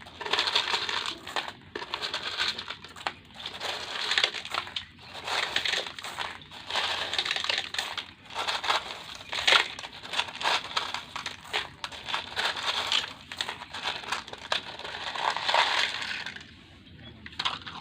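Small coloured gravel being dug and stirred through, a continuous crunching rattle of pebbles with many small clicks; it dies down near the end.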